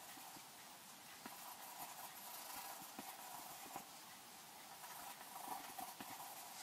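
Faint scratching of a graphite pencil hatching on paper, with scattered light ticks as the lead strikes the sheet.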